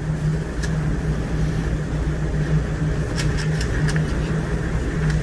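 Steady low drone of the container ship's machinery: a constant hum over a deep rumble.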